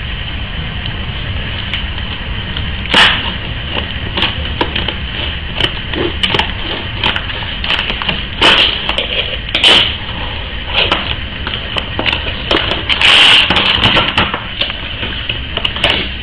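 Plastic blister packaging crackling and snapping as it is handled and pulled open, in irregular bursts, with a longer crackle about thirteen seconds in. A steady low hum runs underneath.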